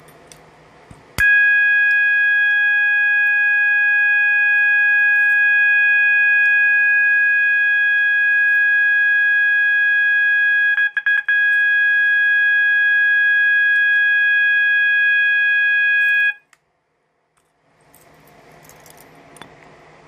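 System Sensor MASS multi-alert sounder strobe, set off by a pull station, sounding a loud steady continuous alarm tone. It starts abruptly with a click about a second in, stutters off and on a few times around eleven seconds in, and cuts off suddenly about sixteen seconds in.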